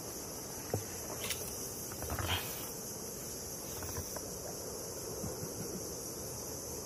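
Steady high-pitched insect chorus, with a few faint knocks in the first few seconds.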